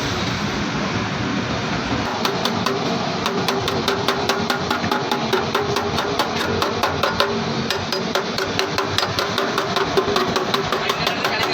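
Quick, evenly spaced hammer taps on metal, about four or five a second, starting about two seconds in, over a steady background din.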